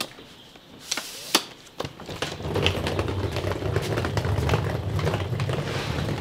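A few sharp knocks and clicks, then from about two seconds in a vehicle engine starts running steadily with a low rumble and light rattling.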